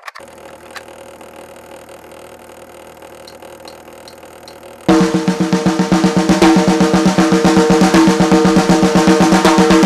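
Instrumental intro of a rhythm and blues / rock 'n' roll record: quiet for the first few seconds, then about five seconds in the band comes in loud with fast, driving drums.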